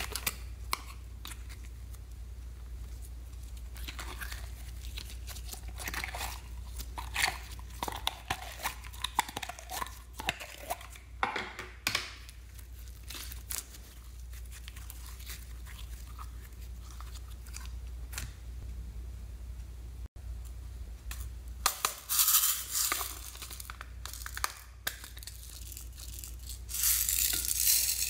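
Glitter slime being squeezed, stretched and pulled by hand, with sticky crackling, popping and wet clicks. Near the end a plastic slime container is handled and opened, giving louder crackling and clicks.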